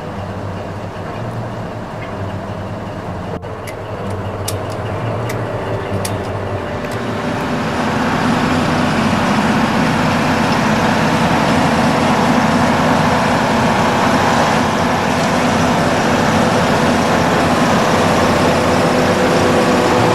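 Engine of a Kamaz-based four-track snow-and-swamp carrier running, growing louder over the first several seconds and then holding steady. A few sharp clicks come a few seconds in.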